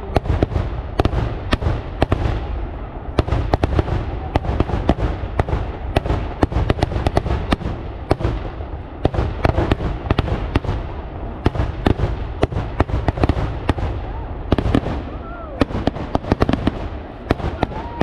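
Daytime fireworks going off in a rapid, irregular barrage of firecracker bangs, several a second, over a continuous low rumble.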